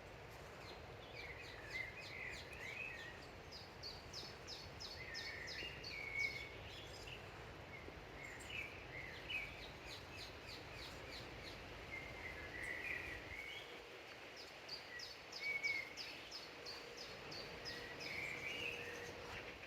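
Dawn chorus of several songbirds: one repeats a quick run of high, evenly spaced notes several times, while others sing lower warbling phrases in between. A low background rumble drops away about two-thirds of the way through.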